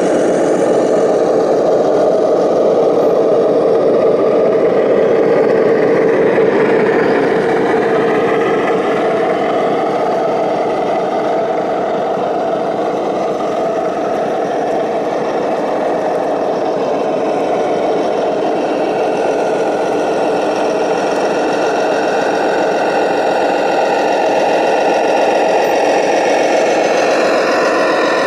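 Radio-controlled scale model trucks driving in convoy, giving a steady diesel-truck engine drone with an electric whir. The drone has little deep bass, as from the trucks' small sound-module speakers.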